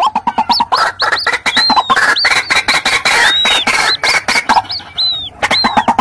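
White-breasted waterhens calling in a loud, raucous mix of adult and chick calls: rapid harsh notes tumble over one another, with high, thin arching peeps on top. There is a brief lull about five seconds in.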